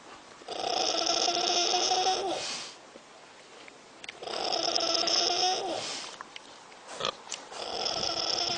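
A sleeping animal snoring: three long snores of about two seconds each, every three and a half seconds or so, each held on a steady pitch. There are a couple of short clicks a little before the last snore.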